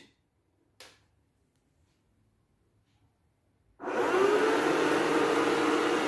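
Multilaser HO041 robot vacuum switched on about four seconds in: its suction motor starts abruptly with a rising whine that levels off into a steady hum over the rush of air.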